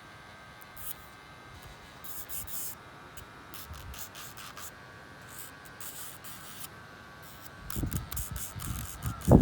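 Handling noises during a pet bird's nail trim: a string of short, hissy rustles, then heavier bumps and knocks near the end.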